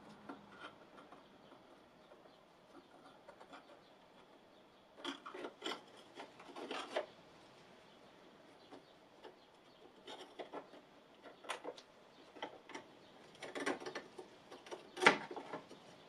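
Gloved hands working scooter fork-bracket parts: intermittent rubbing and scraping with light clicks of metal parts, and one sharper knock about a second before the end.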